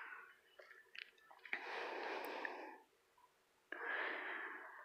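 A singer breathing between lines: two audible breaths of about a second each, with a few small mouth clicks before the first.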